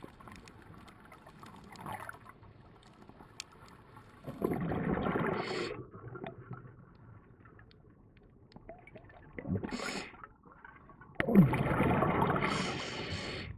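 Scuba diver's exhaled breath bubbling out of the regulator in three gurgling bursts: one about four seconds in, a short one near ten seconds, and a longer, louder one from about eleven seconds.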